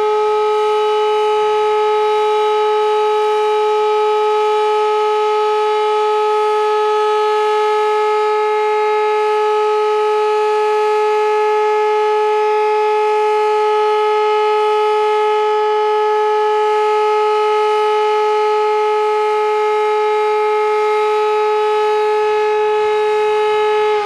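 Civil defence siren sounding one long, steady tone at a constant pitch, the continuous-tone all-clear (Entwarnung) signal of the German warning day test.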